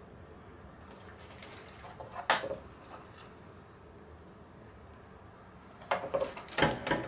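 Metal kitchen tongs clinking and knocking on dishes as chicken thighs are set onto a plate: one sharp knock about two seconds in, then a quick cluster of clatters near the end.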